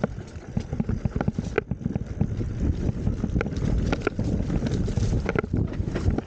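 Downhill mountain bike rattling and rumbling over a rutted dirt trail, with frequent sharp clicks and knocks from the bike jolting over ruts and wind buffeting the microphone.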